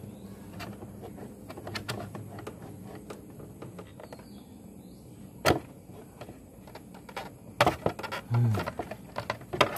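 Hands and a tool working loose the plastic front mudguard's fixings on a motorcycle, giving small scattered clicks and rattles, with a few sharper knocks in the second half.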